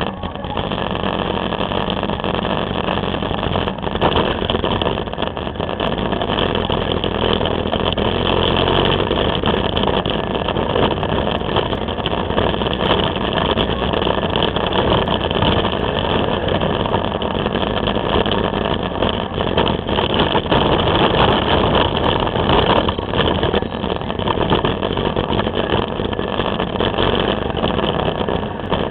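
Can-Am Spyder's engine running steadily while riding, picked up by the camera mounted on the bike together with wind and road noise.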